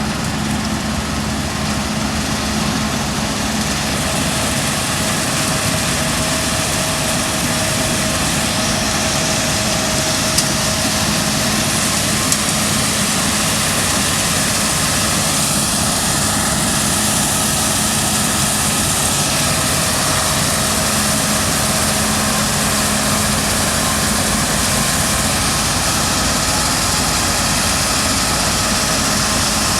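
Claas Lexion 7600 combine harvester running steadily while harvesting beans: engine and threshing machinery at a constant working pitch, with a couple of short clicks about ten and twelve seconds in.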